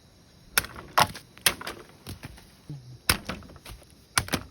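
Bamboo being struck, about half a dozen sharp knocks at uneven intervals with a pause in the middle.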